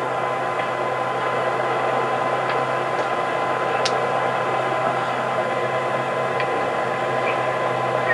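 Steady hiss and low electrical hum from the noisy sound track of a Fisher-Price toy camcorder recording, with a thin steady tone in it and a few faint ticks, the clearest about four seconds in.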